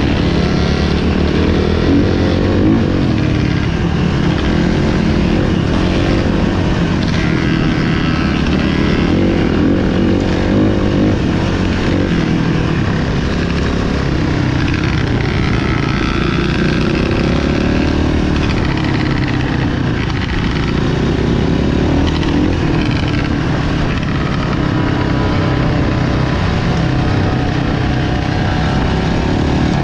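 Motocross dirt-bike engines revving up and down as they race. The sound is steady and loud, with pitch rising and falling through the gears.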